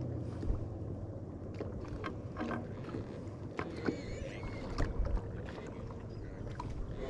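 Scattered light knocks and clicks of handling in a small fishing boat over a low steady hum.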